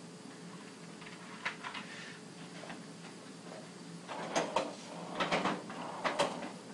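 Scattered clicks and rustling of things being handled close by, a few faint ones early and a louder cluster between about four and six and a half seconds in, over a steady low electrical hum.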